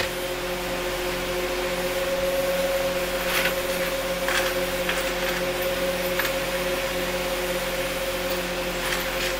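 A steady machine hum from a small motor, with a few faint clicks of screws being handled.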